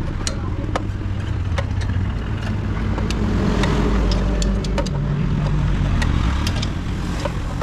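A vehicle engine running, swelling louder and a little higher from about three seconds in until near the end, with scattered sharp clicks over it.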